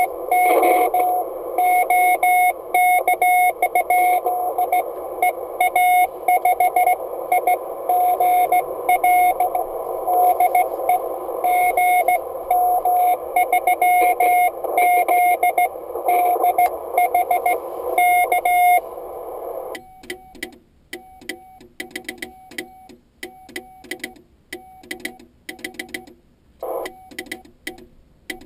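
Morse code (CW) heard on an Icom IC-701 shortwave transceiver: a single steady beep tone keyed on and off in dots and dashes over receiver hiss. About two-thirds of the way in the hiss cuts out, and the keyed tone carries on quieter with light clicks.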